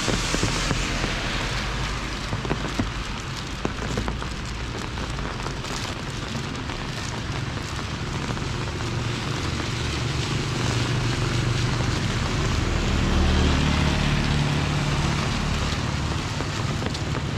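Steady rain falling, a dense hiss with scattered drop ticks. In the second half a vehicle engine's low hum grows louder and peaks about three-quarters of the way through.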